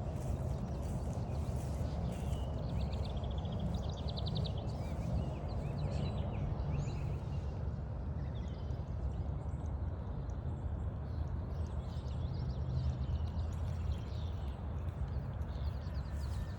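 Woodland birds calling and singing, with a rapid trill a few seconds in and scattered chirps after, over a steady low rumble.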